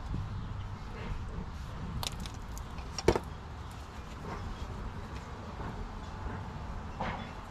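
Hand unscrewing the engine oil filter on a Kubota KX91 mini excavator: a few light clicks about two seconds in and one sharp knock about three seconds in, over a steady low rumble.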